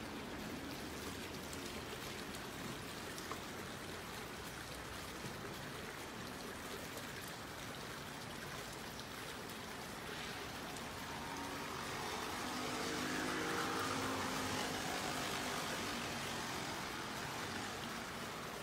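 Steady rush of running and falling water. A vehicle passes for a few seconds past the middle, swelling and fading over the water.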